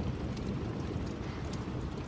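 Steady rain with a low, smooth rumble of distant thunder.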